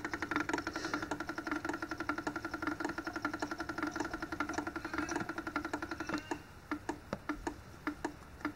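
OI Analytical 9310 cyanide analyser's pump running as it primes the grab sample: a rapid, even ticking over a steady hum. About six seconds in the hum stops and it drops to a slower clicking, roughly three or four clicks a second.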